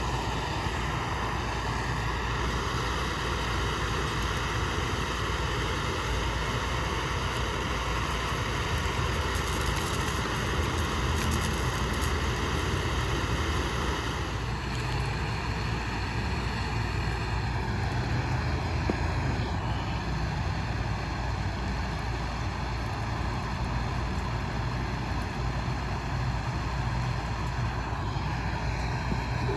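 A camp stove burner running with a steady roar as water heats for cooking. Its tone shifts slightly about halfway through.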